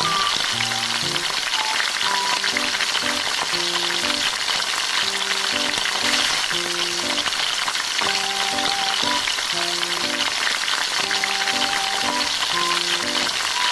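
Steady sizzling and crackling of food frying in oil in a pan, over a simple background melody of short notes.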